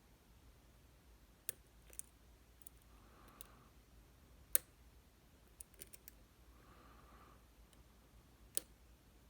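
Sparse, sharp metallic clicks of a tension bar and dimple pick working in the keyway of a Goal D9 nine-pin dimple lock, about ten clicks at uneven intervals with a louder one about halfway through.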